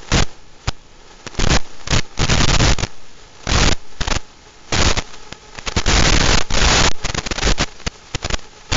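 Irregular bursts of loud static hiss, some brief and some lasting a second or more, with no motor whine in it: the noise from an analog FPV video receiver's audio channel recorded by the goggles' DVR.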